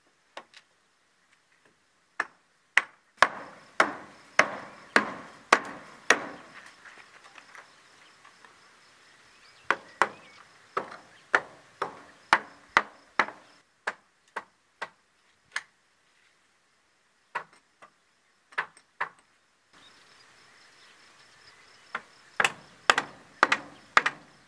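Hammer striking wooden roof battens to knock them off the rafters: runs of sharp wooden knocks, a little under two a second, with short pauses between runs.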